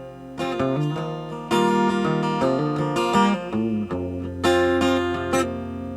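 Acoustic guitar picked and strummed in short phrases of notes and chords, with one chord left ringing and slowly fading near the end.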